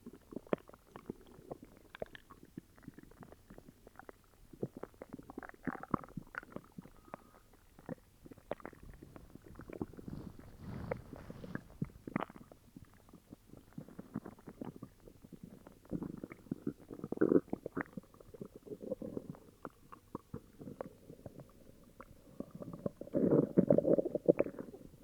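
An upset stomach growling and gurgling, with many small pops and squelches. It swells into longer rumbles several times, and the loudest comes near the end.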